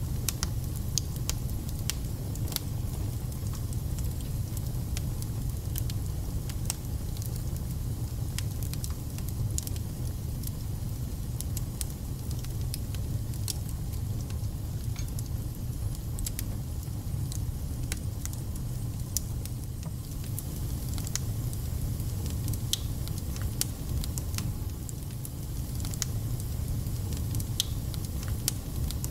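Wood fire burning in a fireplace: a steady low rumble with frequent sharp crackles and spitting pops at irregular intervals.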